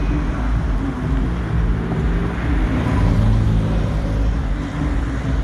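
Street traffic: car engines running, with a steady low rumble.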